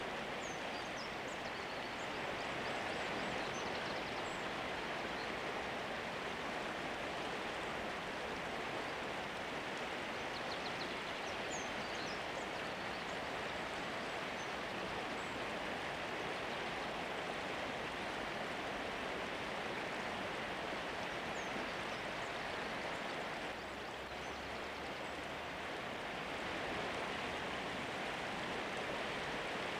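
Steady rushing noise of running water, dipping slightly for a few seconds near the end.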